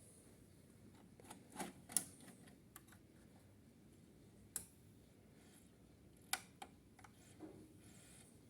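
A few sharp, irregular clicks and taps over quiet room tone, about eight in all, with the loudest near two seconds in and again past six seconds.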